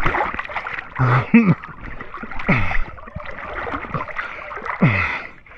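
Swimming-pool water splashing and lapping, broken by three short vocal exclamations, two of them falling in pitch.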